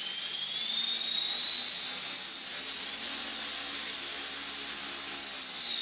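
Madhawk 300 RC helicopter's electric motor and rotor head spinning on a held-down bench test run after a flybar replacement: a high whine that climbs over the first couple of seconds, holds steady, then begins to wind down at the very end.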